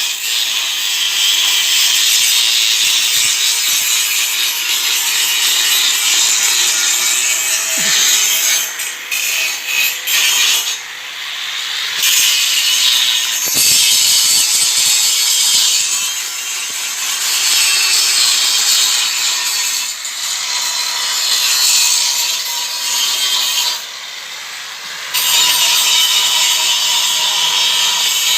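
Angle grinder grinding down weld seams on metal: a steady hiss of the disc on steel over a constant motor whine, with the grinding dropping away briefly twice.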